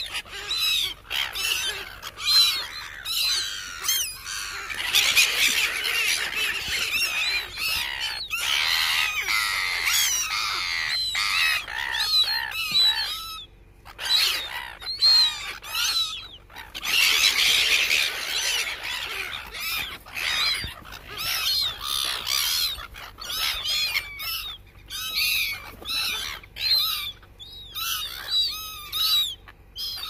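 A flock of gulls calling, many short harsh squawks overlapping almost without pause, with a couple of brief lulls about halfway through.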